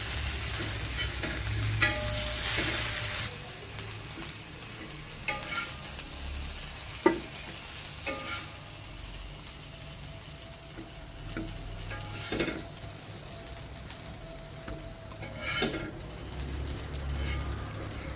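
Chicken pieces sizzling in oil on a dosa tawa. The sizzle is loud for about the first three seconds and then dies down, because the stove has just been switched off. A spatula knocks and scrapes against the tawa a handful of times.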